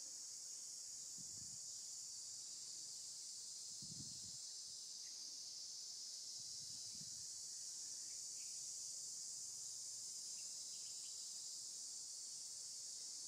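Steady high-pitched drone of insects, with a few soft low thumps about one, four and seven seconds in.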